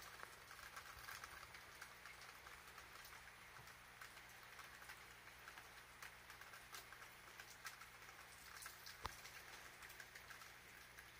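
Near silence: faint room hiss with scattered soft ticks and one sharper click about nine seconds in.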